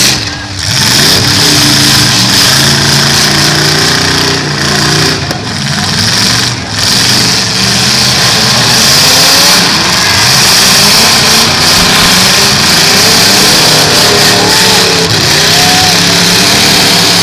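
Engines of several full-size demolition derby cars running and revving together, their pitches rising and falling over a steady noisy hiss.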